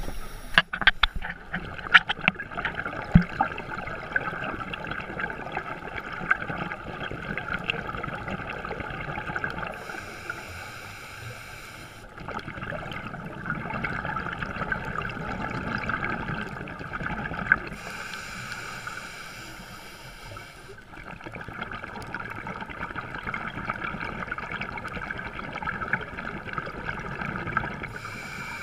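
Underwater sound heard through a camera housing: a scuba diver breathing through a regulator, with an inhaled hiss about every eight seconds followed by a longer stretch of exhaled bubbles gurgling. A few sharp knocks come in the first three seconds.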